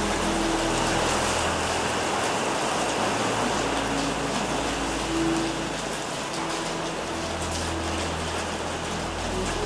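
Heavy rain falling steadily on rooftops and pavement, with a low hum that comes and goes underneath.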